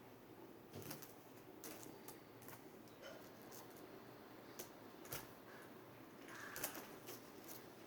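Faint rustling of cotton fabric being handled and folded into pleats, with a few soft scattered clicks and taps.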